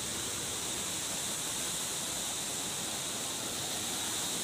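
Steady rushing of a river in flood, fast water pouring past a concrete sluice-gate structure.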